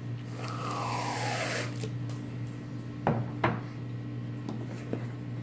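Aerosol can of whipped cream sprayed into the mouth: a hissing spurt of about a second and a half near the start, with a pitch that falls as it goes. A couple of sharp knocks follow about three seconds in, over a steady low hum.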